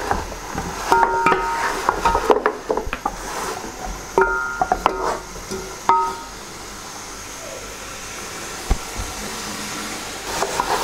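Wooden spoon stirring beef trotters in a metal cooking pot, knocking against the pot so that it rings briefly with each knock, several times over the first six seconds. After that comes a quieter steady hiss of the frying masala, with one more click.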